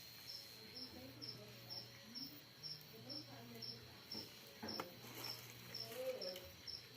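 A cricket chirping, a short high chirp repeated evenly about two and a half times a second, over faint distant voices and a low steady hum.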